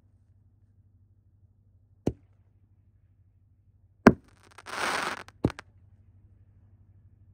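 5-inch Nishiki willow canister shells firing one at a time from a mortar rack. Sharp single reports come about 2, 4 and 5.5 seconds in, the one at about 4 seconds the loudest, followed by a brief hiss.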